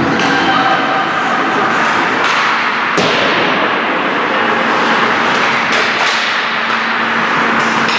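Ice hockey game play in an arena: a steady wash of skates scraping the ice and rink noise, with sticks and puck knocking and one sharp crack about three seconds in.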